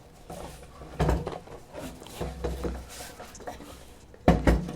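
Hand-work noise on a motorcycle being stripped: a knock, some rattling, and two loud knocks in quick succession near the end as parts are handled and set down.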